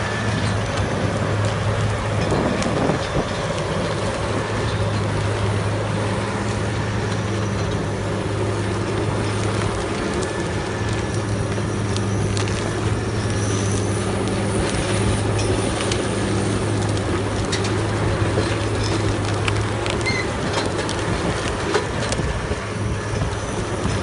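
A heavy wood-processing machine running steadily, its engine a constant low hum, with crackling and crunching of wood being shredded.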